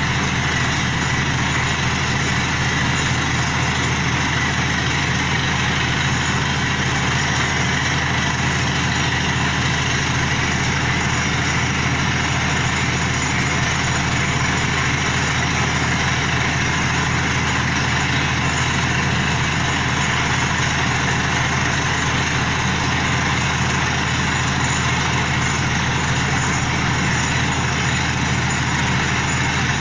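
Heavy diesel engine of a borewell drilling rig setup running steadily at a constant speed.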